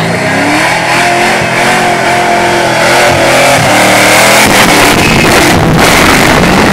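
Fox-body Ford Mustang revving hard and accelerating away, the engine note climbing and dropping repeatedly as it pulls past.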